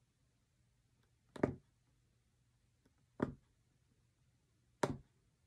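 Punch needle threaded with embroidery floss being pushed through fabric stretched tight on a frame: three short, sharp punches at an even pace, each a brief pop as the needle goes all the way down.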